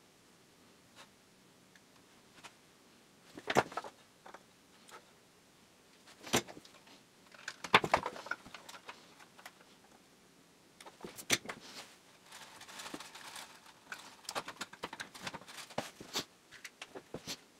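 Workbench handling noise: scattered clicks, taps and light metallic rattles as small tools and parts are picked up and set down, the loudest knocks about three and a half and eight seconds in, with a stretch of soft rustling about twelve seconds in.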